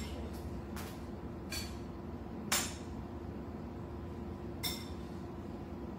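A spoon clinking against a bowl as marshmallows are scooped, with about five separate clinks, the loudest about two and a half seconds in.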